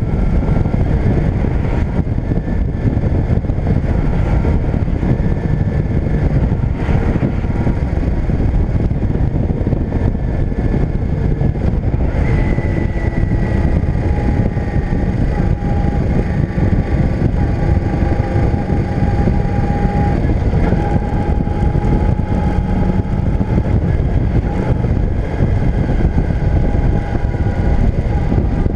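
Motorcycle engine running at road speed, heard with strong wind rush over the microphone; the engine note shifts in pitch about twelve seconds in.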